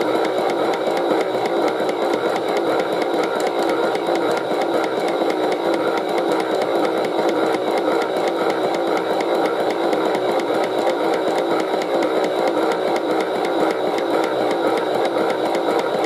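Toy washing machine's small electric motor turning the drum on its spin cycle, running steadily with a fast fine rattle.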